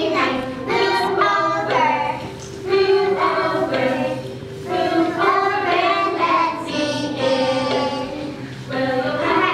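Young children singing a song together in several voices.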